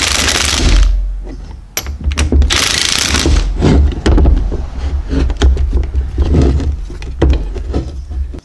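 An air tool running in two short bursts, snugging down the bolts that hold an upper ball joint to the control arm. Clicks and knocks of the tool and metal parts follow.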